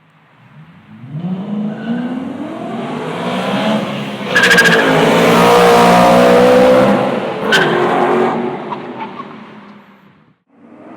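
BMW E9X M3's 4.0-litre V8 under hard acceleration through its exhaust, the engine note rising from silence to loud, with two sharp cracks about four and a half and seven and a half seconds in, then fading away near the end.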